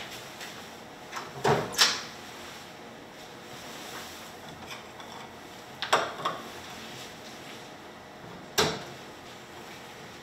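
Glass-fronted wooden dish cabinet being opened and shut while ceramic bowls are taken out: three short clatters, the first loudest.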